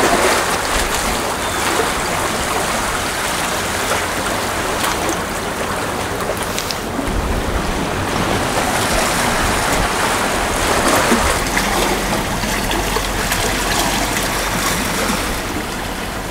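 Small waves washing against a rocky shore, a steady rush of water, with wind buffeting the microphone at times.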